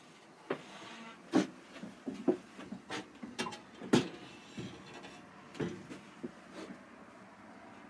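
Irregular knocks and clicks inside a motorhome's small interior, with two louder knocks about a second and a half in and about four seconds in.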